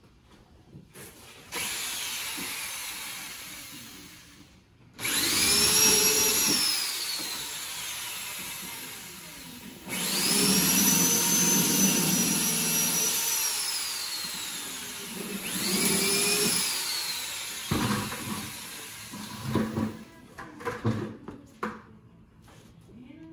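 Electric drill boring into the joint of a wooden window sash, for dowels. It runs in several bursts, the longest about five seconds, with a whine that rises as it spins up and falls as it stops. Knocks and handling clatter follow near the end.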